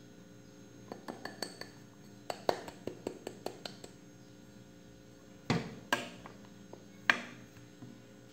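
Kitchen glassware and a metal spoon clinking: a run of light taps and clicks as flour is shaken out of a drinking glass into a glass bowl of beaten eggs, then three louder ringing clinks against the glass bowl about halfway through and near the end.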